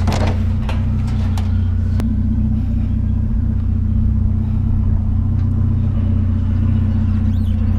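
Vehicle engine idling with a steady low drone, with a few light clicks in the first two seconds and faint high chirps near the end.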